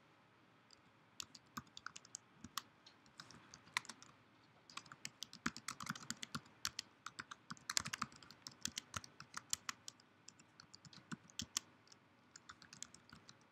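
Computer keyboard typing: faint, irregular runs of keystrokes with short pauses between them.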